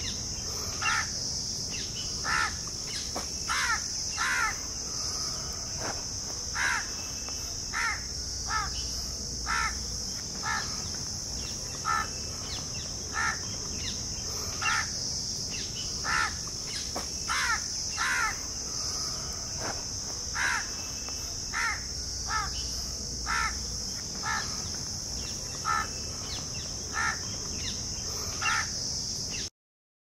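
A bird gives short calls over and over, about one a second, over a steady high-pitched drone of insects. The sound cuts off suddenly near the end.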